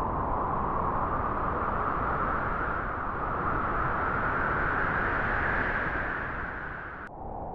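Wind blowing through grass: a steady rushing that slowly swells and eases off, then drops off suddenly near the end.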